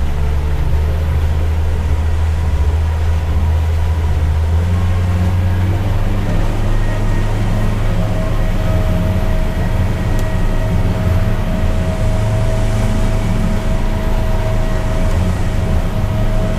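Mercury outboard motor running under way at steady throttle, a deep steady drone. Its note steps up slightly about four and a half seconds in, and a thin steady whine joins about eight seconds in.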